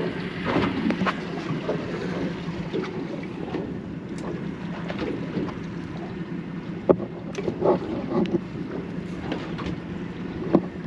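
Suzuki outboard motor running steadily, with a constant low hum, wind on the microphone and water noise, and a few sharp clicks and knocks here and there.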